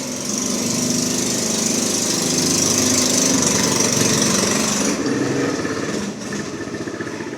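A motor or small engine running loudly for about five seconds, then dropping off.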